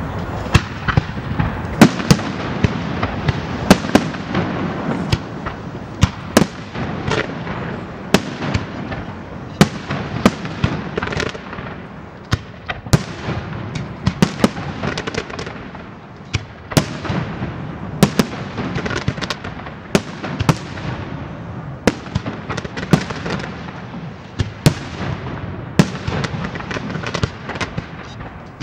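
Aerial fireworks castillo: a dense, continuous barrage of shell bursts and sharp bangs, several a second, over an unbroken noisy background.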